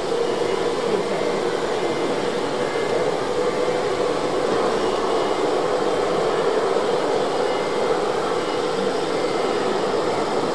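Steady din of a crowded exhibition hall: an even wash of noise with a constant hum running through it.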